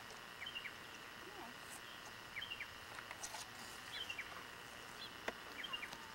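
A bird calling repeatedly in short chirps, a couple of quick notes at a time, coming back about every second and a half over a faint steady hiss.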